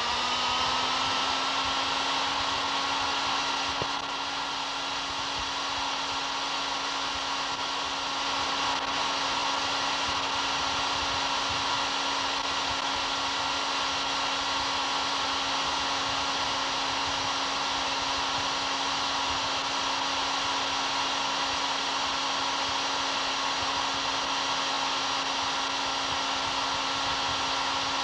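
Handheld electric drill running steadily, its motor whine rising to speed in the first second and then holding one even pitch.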